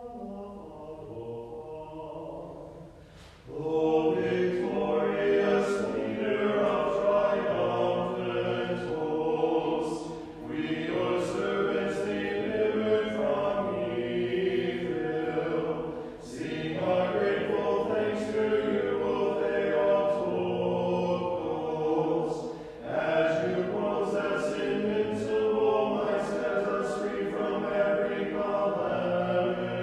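Church choir singing an Orthodox liturgical hymn a cappella, in phrases about six seconds long with short breaks between them. A single voice is heard alone for the first few seconds before the choir comes in.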